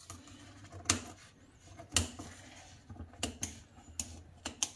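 Scissors snipping through the edge of a thin sheet of warqa pastry: a series of short, sharp snips about once a second, coming closer together near the end.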